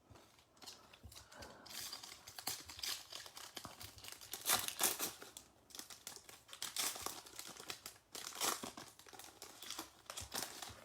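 Plastic-foil wrapper of a trading-card pack being crinkled and torn open by hand, an irregular crackling that comes and goes, loudest about halfway through.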